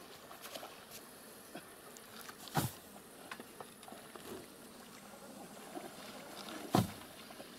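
Faint sloshing and splashing of water as a person swims and wades through a shallow pond, with two brief sharp knocks, one about two and a half seconds in and one near the end.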